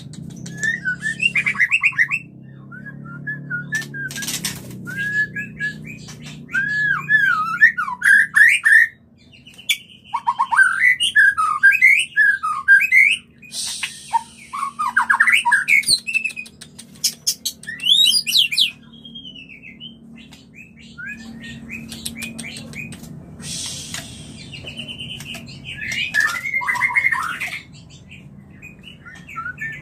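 White-rumped shamas calling in courtship: quick, varied whistled phrases that rise and fall, broken by a few harsh rasping notes.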